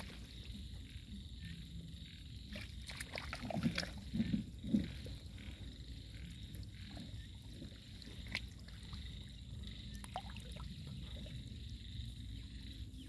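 Shallow muddy paddy water lapping and swirling as large fish move through it, with scattered small splashes and three louder low splashes about four seconds in. A faint steady high drone runs underneath.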